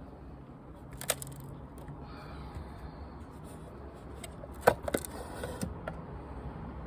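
A few sharp knocks and clicks over a low steady rumble, the loudest about two-thirds of the way through, with a short cluster of lighter clicks after it.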